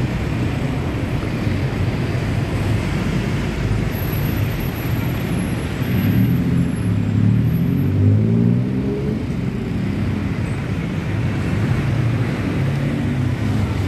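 Road traffic on a busy city street: car and bus engines running in slow traffic, with one engine's low rumble growing louder for a few seconds around the middle.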